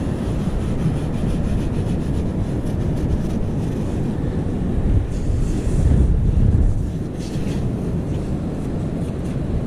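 Wind buffeting the microphone in a steady low rumble, gusting louder about five to seven seconds in.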